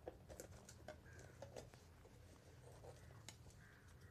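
Faint handling noise as a foam flying wing is turned over and a plastic protractor laid on it: a cluster of light taps and rustles in the first second and a half, then a single sharp click about three seconds in.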